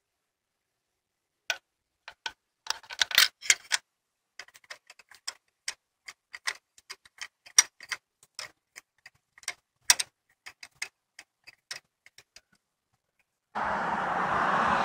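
Irregular metallic clicks and taps of a spark plug socket on a long extension, worked by hand down a plug well to thread a spark plug back in. Near the end a steady rushing noise starts suddenly.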